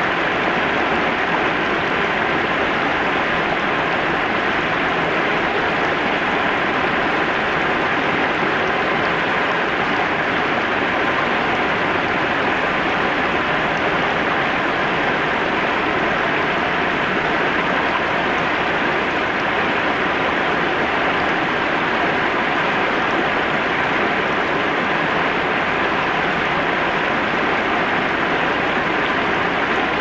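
Shallow river water spilling over a low concrete weir and running over rocks: a steady, even rushing without a break.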